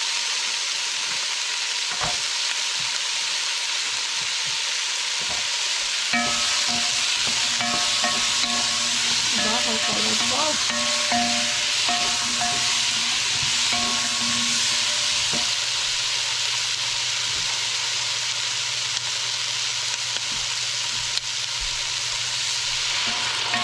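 Chopped vegetables (squash, eggplant, tomato and green beans) sizzling steadily in hot oil in a pot, stirred and turned with a wooden spoon.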